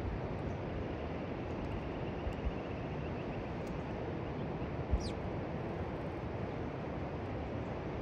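Steady low outdoor rumble, like wind on the microphone, with a small bird giving one short falling call about five seconds in and a faint thin call a little before.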